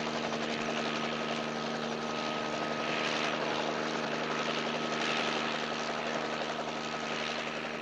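A Bell 206 JetRanger-type turbine helicopter in flight: the two-bladed main rotor chopping steadily over an even engine drone with a thin high whine.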